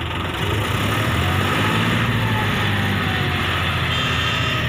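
Diesel engine of a JCB 3DX backhoe loader running steadily, growing louder about a second in.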